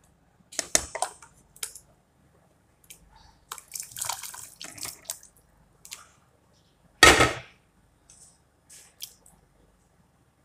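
Cut pieces of sausage dropping into a pot of water: irregular plops and splashes in clusters, with one much louder splash about seven seconds in and a few small drips near the end.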